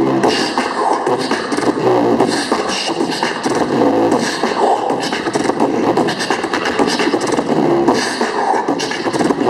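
Live vocal performance played loud through a concert sound system.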